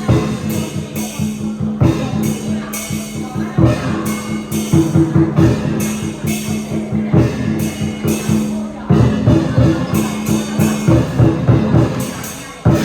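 Chinese dragon dance percussion band playing: a drum beating a fast, steady rhythm with cymbal clashes. Dense, repeated strikes run throughout, with a few brief accents.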